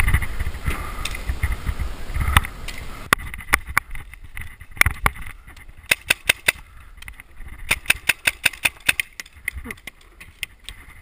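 Running footsteps and rattling gear for about the first three seconds. Then paintball markers firing: sharp pops, several a second, in bursts with short gaps.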